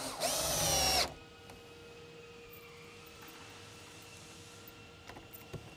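Cordless drill driving a screw through an aluminum door-jamb cover into the wood jamb: one burst of motor whine that rises as it spins up, holds, and stops after about a second. A faint steady hum follows.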